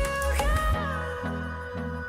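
Background music with a steady beat and a sustained melody; the heavy bass drops out about three-quarters of a second in.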